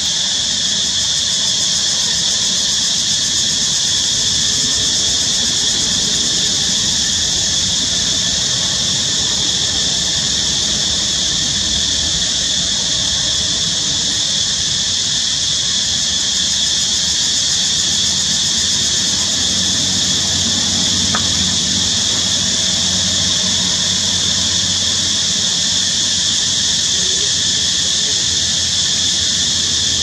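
A steady, high-pitched buzzing drone that never breaks or changes, with a faint low hum underneath.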